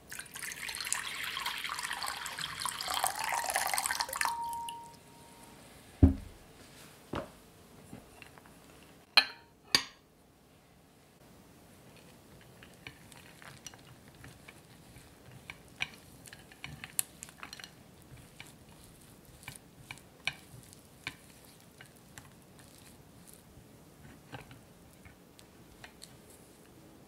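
Hot water poured from a kettle into a glass bowl, a steady splashing pour for about four seconds that grows louder before it stops. Then comes a sharp thump, a knock and two quick clinks. After that there are faint, scattered taps and scrapes of a silicone spatula working chopped chocolate in a glass bowl.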